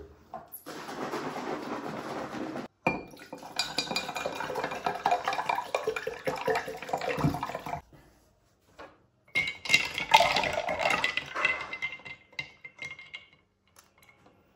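Liquid poured over ice cubes in a large glass jar, with the ice clinking against the glass. A few seconds later a metal spoon stirs the iced drink, clinking and ringing against the jar.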